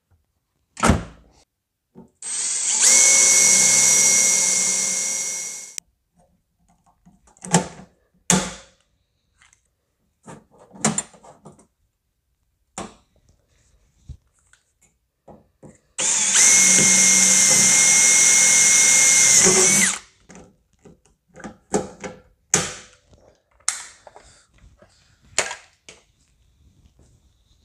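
Cordless drill running at a steady pitch, drilling pilot holes through quarter-panel sheet metal for pop rivets: two runs of about three to four seconds each, the first winding down and the second cutting off sharply. Scattered sharp clicks and snaps fall between the runs.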